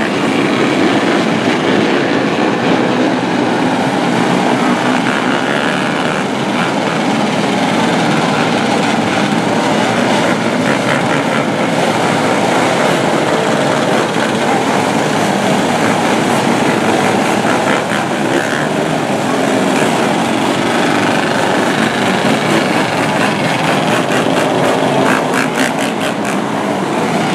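Engines of a field of 125cc winged micro sprint cars running around a dirt oval, a steady mixed drone of many small engines.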